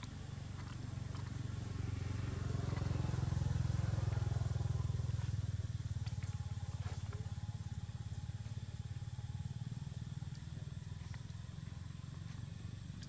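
Low engine rumble of a motor vehicle, growing louder about two seconds in and then slowly fading, with a few faint clicks around the middle.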